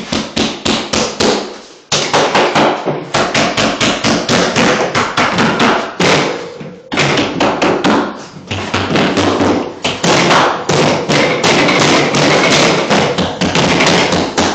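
Rapid hammer blows driving nails into a wall, about five strikes a second, pausing briefly about two seconds in and again around six to seven seconds in.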